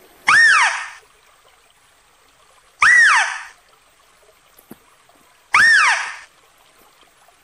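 Philippine mouse deer (Balabac chevrotain) calling: a loud, high squeal that rises and then falls in pitch. The same call comes three times, about two and a half seconds apart.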